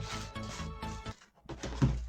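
Background music with a steady beat that cuts out briefly a little past a second in. It is followed near the end by a short, deep thump.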